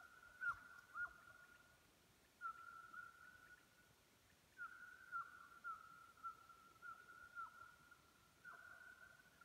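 Russian hounds baying on a trail, faint with distance. The voices come as long, high, drawn-out notes in phrases of one to two seconds with short gaps, each broken by quick downward yelps, and at times two voices sound together.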